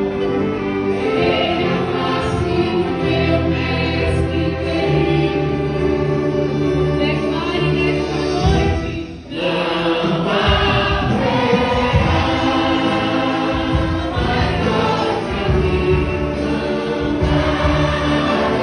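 Church choir singing a hymn, accompanied by a string orchestra of violins. The music dips briefly about halfway through, then carries on.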